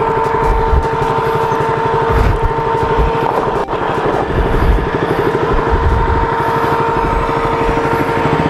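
KTM RC motorcycle's single-cylinder engine running at low revs as the bike picks its way over a rocky dirt trail, with a steady high whine over the engine note and a sharp knock a little over three and a half seconds in.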